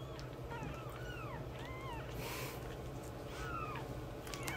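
Newborn kittens mewing: a quick series of about a dozen short, high mews, each rising and falling in pitch. There is a brief rustle just past halfway.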